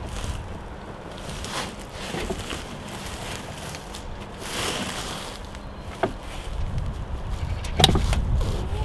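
Low rumble of wind on the microphone, with scattered rustles, knocks and clicks from hands fitting a plastic cable cover against a window frame; the sharpest knock comes near the end.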